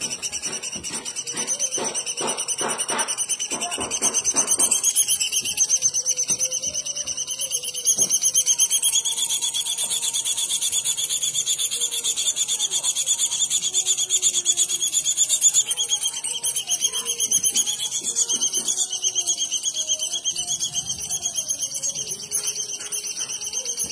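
A songbird giving a long, continuous buzzy trill, rapid and insect-like, that shifts its pitch a little a few times. It is a recording used to tutor cage birds.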